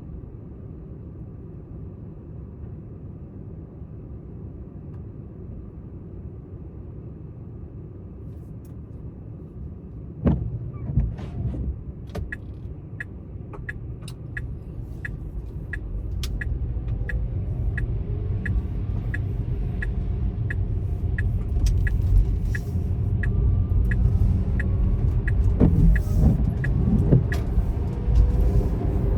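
Car running quietly at a standstill. About ten seconds in there is a thump, then the turn-signal indicator starts ticking about one and a half times a second while the car pulls away and the engine and road rumble grow louder.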